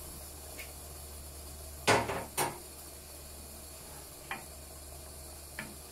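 Kitchen utensils, a metal ladle and a wooden spoon, knocking against a non-stick frying pan of simmering ragù: two sharp knocks about two seconds in, then a few light taps, over a steady hiss of boiling water and bubbling sauce.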